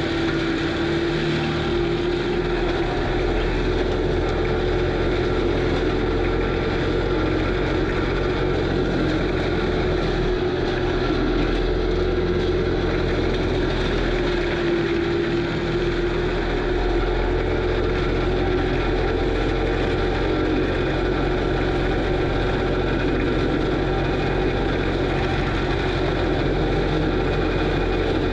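Kubota SVL95 compact track loader's diesel engine and FAE forestry mulcher running steadily under load, with a strong held tone that drifts slightly up and down in pitch over the low engine rumble.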